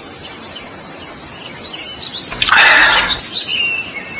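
Fast-flowing river water rushing steadily, with birds chirping. A loud, short, noisy burst about two and a half seconds in stands above it.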